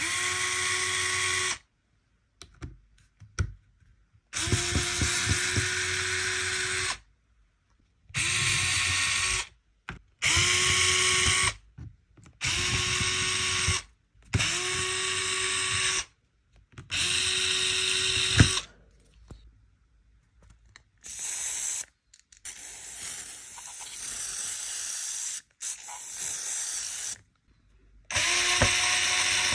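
Small electric power drill run in short bursts of one to two seconds, each spinning up quickly to a steady whine and then stopping; about seven loud bursts, then a few quieter, rougher runs, and one more loud burst near the end.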